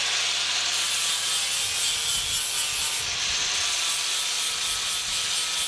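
Table saw blade cutting a notch into 10 mm aluminium plate as the plate is rocked back and forth over the blade: a steady, continuous cutting noise.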